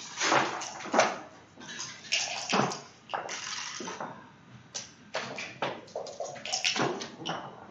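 Backgammon checkers clacking as they are moved and set down on the board, and dice rattled and thrown onto the board, a run of sharp irregular clicks and rattles.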